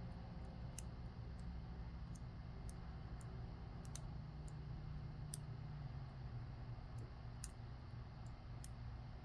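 Faint, irregular small metallic clicks of a lock pick working the spool-pinned pins of a solid-brass padlock, over a low steady hum.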